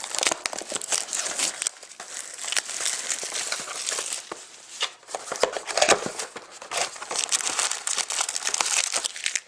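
Crinkling and rustling as a sealed box of trading-card packs is unwrapped and opened and its packs are handled, with many small sharp crackles.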